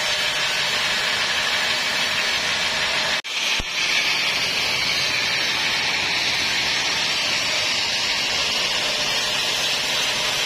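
Band sawmill running with a steady, high whirring hiss that cuts out briefly about three seconds in.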